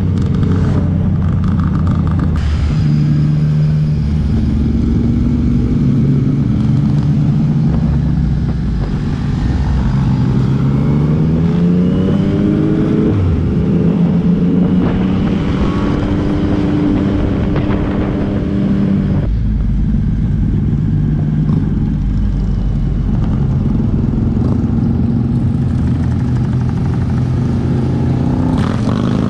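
Yamaha MT-09's three-cylinder engine heard from the rider's seat while under way, its pitch rising as it accelerates through the gears and falling back as the throttle eases, over steady wind noise.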